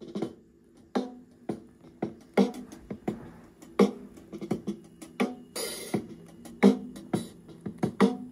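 Drum-driven music from a vinyl LP playing on a mid-1970s Emerson Wildcat suitcase record player with a BSR record changer, heard through its built-in speakers. The music starts right at the beginning, with sharp drum hits throughout.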